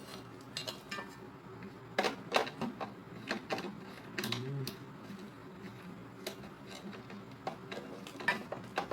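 Parts of a meat grinder clicking and clinking as they are handled and fitted together: scattered sharp knocks, with small clusters about two seconds in, around four seconds, and near the end.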